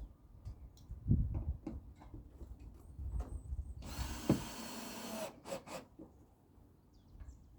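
Power drill running in one short burst of about a second and a half, midway through, driving a fastener while the roof is mounted. Sharp clicks and knocks of handling come before and after it.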